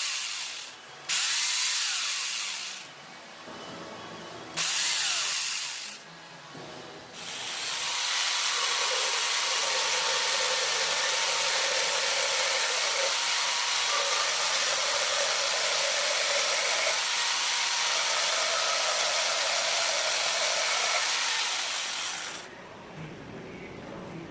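Angle grinder converted into a chainsaw, triggered in three short bursts, then run steadily for about fifteen seconds with a high whine before it stops.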